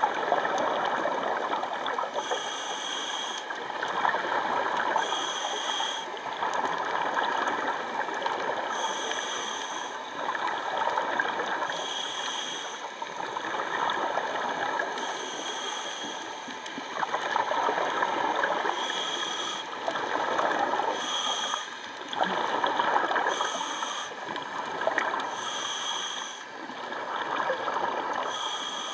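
Scuba diver breathing through a regulator underwater: a hiss with a faint whistle on each inhale, recurring about every three seconds, between gurgling rushes of exhaled bubbles.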